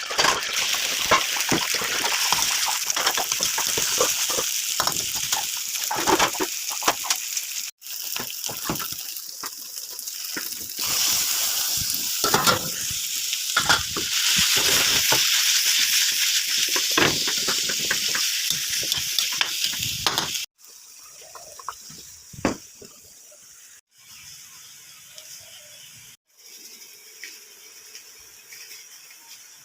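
A stir-fry sizzling hard in a hot pan, with a spatula scraping and knocking as it is tossed. It breaks off abruptly a couple of times, and after about twenty seconds drops to a faint hiss with only a few light knocks.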